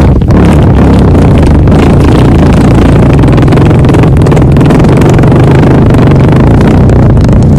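A long, very loud fart: a steady, low buzzing flutter held without a break.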